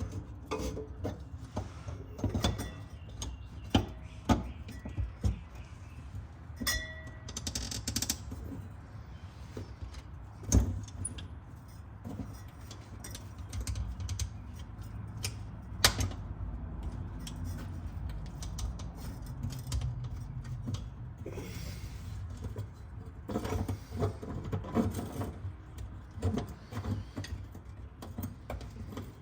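Hand tools clinking and knocking on metal car parts while parts are worked loose: scattered clicks and rattles with a few sharp knocks, busier near the end. A steady low hum runs underneath.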